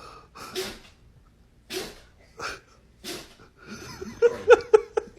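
A dog sneezing about four times, roughly once a second. Near the end comes a quick run of short, sharp, louder sounds, several a second.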